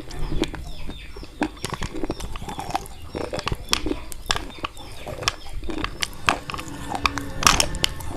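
Close-up crunching of slate pencils coated in white khadi chalk paste, bitten and chewed. It comes as irregular sharp cracks and crackles, several a second, with the loudest crunch about seven and a half seconds in.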